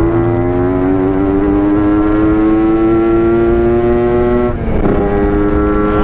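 Kawasaki Ninja 150 RR two-stroke engine pulling hard under acceleration, its pitch climbing steadily; about four and a half seconds in the sound breaks briefly at a gear change and then carries on climbing.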